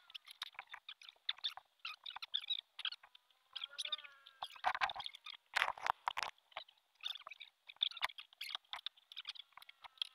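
Fast-forwarded workshop audio: sped-up voices come out as quick, high chirps, mixed with scattered sharp knocks, the loudest about five to six seconds in.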